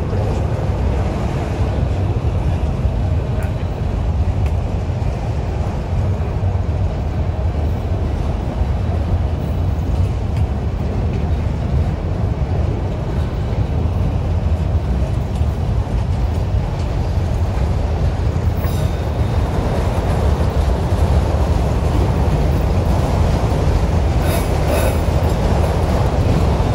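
Freight train working upgrade: a steady, heavy low rumble of diesel locomotives and rolling railcars, with a few brief high-pitched clicks about two-thirds of the way through and again near the end.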